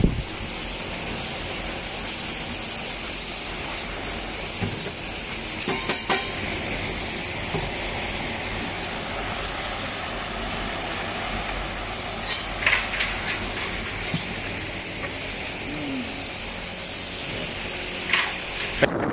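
Garden hose spray nozzle hissing steadily as it jets water onto a concrete kennel floor, with a few faint knocks now and then.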